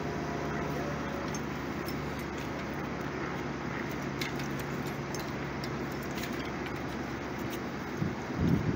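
Telehandler crane's diesel engine running steadily, with light metallic clinking of mast rigging wires and fittings being handled. A few louder low bumps about eight seconds in.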